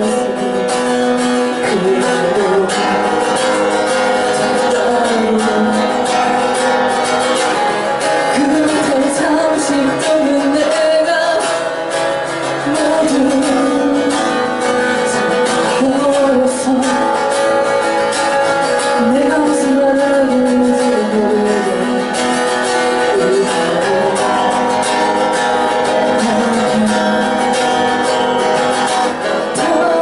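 A woman singing a song live while strumming her acoustic guitar, the melody moving steadily over the chords.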